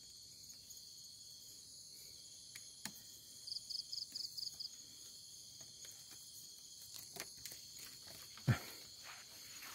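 Night insects, crickets, trilling steadily at a high pitch, with a short run of rapid pulsed chirps about four seconds in. A few faint clicks, and a single thump near the end.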